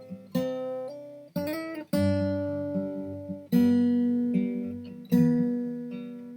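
Background music: acoustic guitar chords struck one after another, each left to ring out and fade, with a quick run of notes about a second and a half in.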